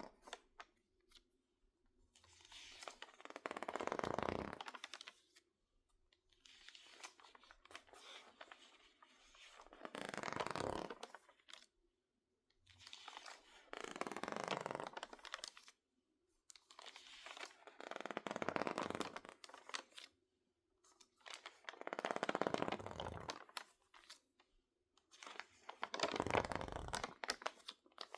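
Crinkly water-damaged magazine pages being handled: slow swells of rustling and crinkling about every four seconds, six in all, with faint crackles between them.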